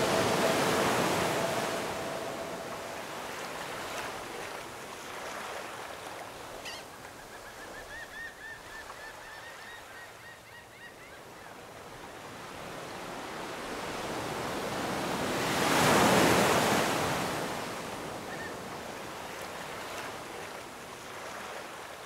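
Rushing, surf-like noise of waves washing in, swelling and fading twice and loudest about sixteen seconds in. A held musical chord fades out in the first few seconds, and a quick run of high chirps comes about seven seconds in.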